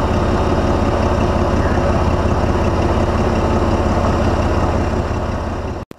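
Hydraulic power unit running steadily with a rapid low pulse, driving the pressure test of a four-stage telescopic hydraulic cylinder. It cuts off abruptly near the end.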